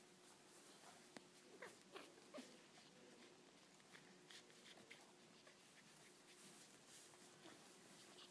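Near silence, with faint rustling and a few small squeaks from newborn French bulldog puppies being handled in a fleece bed, loudest around two seconds in.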